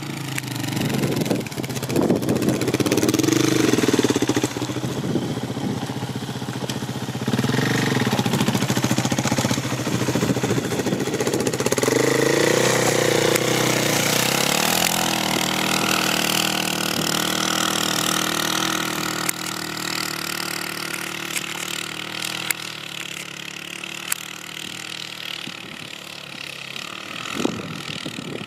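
Suzuki LTZ 400 quad's single-cylinder four-stroke engine revving up and down repeatedly as the quad churns through snow and mud. About halfway through it settles into a steadier run and fades as the quad moves away.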